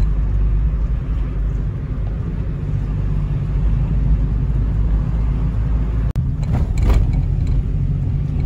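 A car driving on a smooth paved road, with a steady low rumble of engine and tyres. The sound cuts out for an instant about six seconds in, and a brief louder rush follows.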